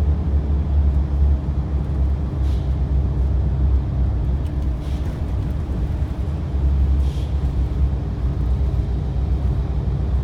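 Steady low engine and road rumble of a tour coach driving, heard from inside its passenger cabin.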